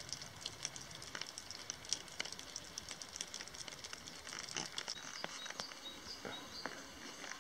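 Meltwater dripping off a snow-laden roof: faint, irregular ticks and pattering, with a few faint high chirps about five seconds in.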